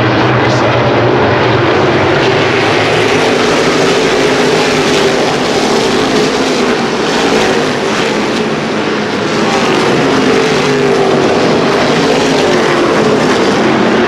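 Field of NASCAR Whelen Modified race cars' V8 engines running at speed around the oval, loud and continuous, with pitch rising and falling as cars pass and easing slightly in the middle.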